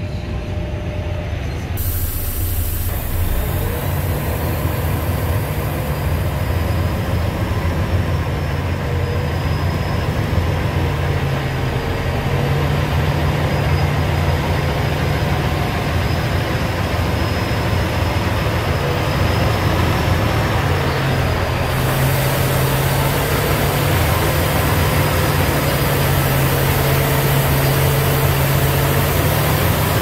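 Diesel semi truck engine running at low speed, heard from inside the cab, with road and cab noise; the engine note steps up and down a few times as the truck moves.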